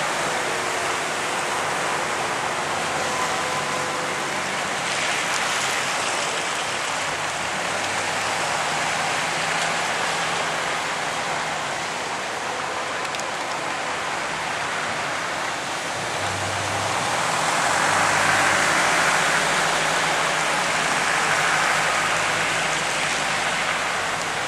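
Steady rushing hiss of a car driving on a rain-soaked road, heard from inside the car: tyres on wet tarmac and rain, with a low engine hum beneath. It swells louder for a few seconds about three-quarters of the way through.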